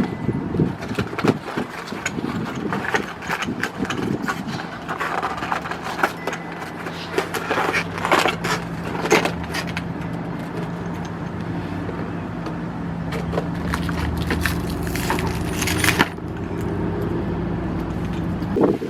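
Irregular clicks, clinks and scrapes of hard parts being handled, which thin out about three-quarters of the way through, over a steady low hum.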